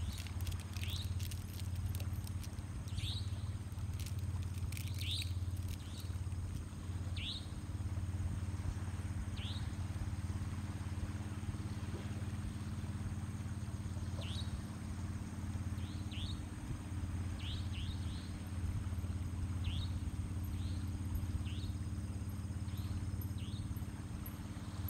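Night ambience: short, falling chirps from a small animal repeat every second or two over a steady low hum, with a few faint clicks near the start.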